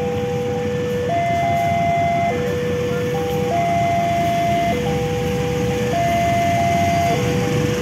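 Railway level-crossing warning alarm sounding: an electronic two-tone signal alternating evenly between a lower and a higher note, each held a little over a second, warning that a train is approaching.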